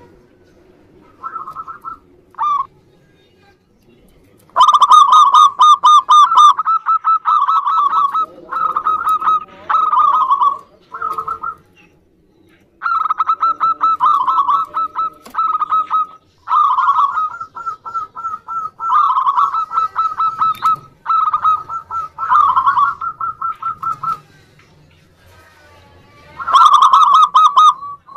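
Zebra doves (perkutut) calling: repeated bursts of rapid, trilling coos, each burst a second or two long, following one another with short gaps. The calls are sparse in the first few seconds and pause briefly about 24 seconds in.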